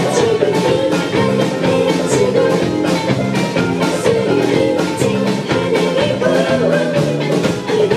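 Live band music with guitar and drums, played at a steady beat.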